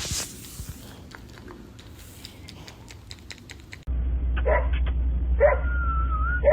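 A dog giving three short yelping cries about a second apart, the middle one drawn out into a thin, wavering whine, over a steady low hum. Before that, scattered light clicks like typing on a keyboard.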